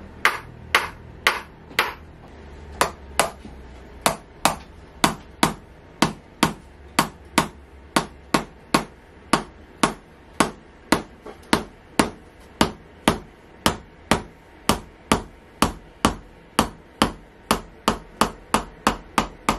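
Tok Sen hammer massage: a small mallet tapping a wedge held against a person's back in a steady rhythm of sharp taps, about two a second, with a short pause about two seconds in.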